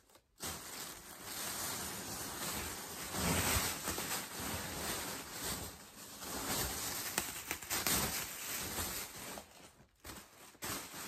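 Rustling and crinkling of plastic packaging and fabric as items are handled and unwrapped. It starts abruptly about half a second in and dips briefly near the end.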